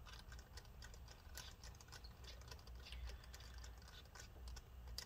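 Faint, irregular small clicks and ticks of a precision Torx screwdriver and small metal laptop parts being handled as a screw is fitted and tightened, over a faint low hum.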